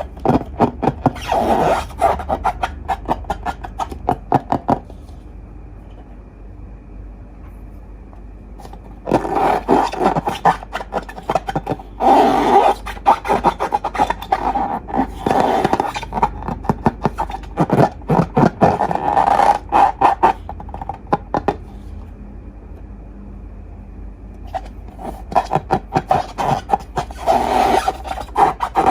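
Slime being squished and stretched, with dense runs of rapid crackling pops from trapped air, in three spells broken by two quieter pauses.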